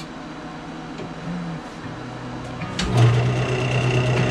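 A wood lathe's motor starts up, just after a click, about three seconds in. It then runs with a steady hum and a thin high whine as it spins a cherry bowl blank.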